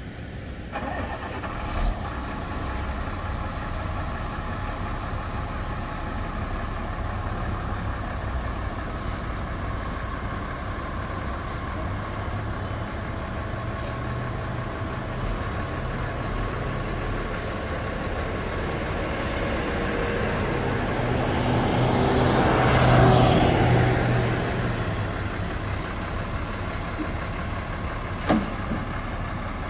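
A 2004 International 4300 flatbed truck's DT466 inline-six diesel engine running as the truck is driven up and down the street. The engine grows louder about three-quarters of the way through as the truck passes close, then fades. There is a short sharp knock near the start and another near the end.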